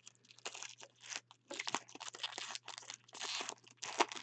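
Foil wrapper of a football trading-card pack and the plastic around the cards crinkling and tearing as gloved hands peel the pack open and pull the cards out, in short irregular rustles, the loudest about a second and a half in and again near the end. A faint steady low hum sits underneath.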